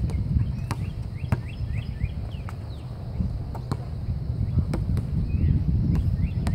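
A basketball bouncing on an outdoor hard court: sharp single bounces at irregular intervals, about eight in all. Under them is a steady low rumble of wind on the microphone.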